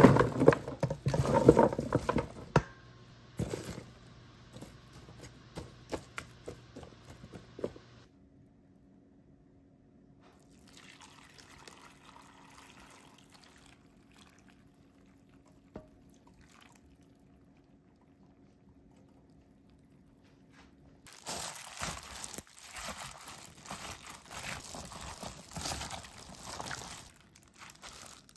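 Sliced onions tipped into a plastic container with a loud clatter at the start, then a quiet stretch with pickling liquid poured over them. From about three quarters of the way in, a hand in a plastic glove presses and mixes the onions, with steady rustling and crinkling.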